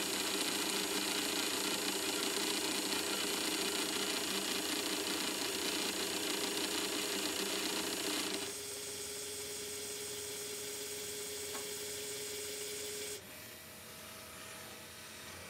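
Small pumps inside a Red Sea Reefbot alkalinity tester running steadily while it flushes its test chamber with RODI water during its cleaning cycle. The louder running stops about eight seconds in, and a quieter steady hum carries on until it cuts off about five seconds later.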